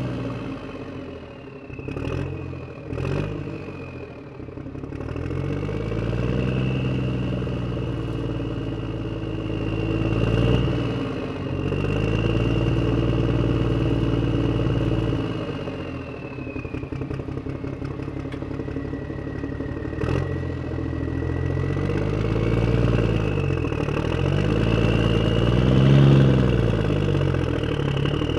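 A vehicle engine running, its pitch rising and falling several times as the revs go up and come back down, with a few sharp clicks near the start.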